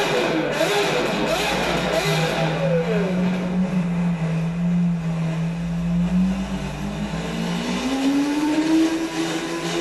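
Lamborghini Aventador V12 engine revving up and down in quick blips. From about two seconds in it settles into a steady drone on a chassis dynamometer, and near the end it starts climbing slowly in pitch as the dyno run pulls up through the revs. Heard as played back through a television and re-recorded.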